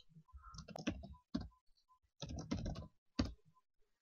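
Typing on a computer keyboard: about four quick runs of keystrokes with short pauses between.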